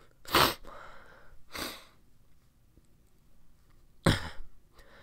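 A person's breathing close to a microphone: three short, sharp breaths or sniffs, about half a second in, just under two seconds in, and about four seconds in.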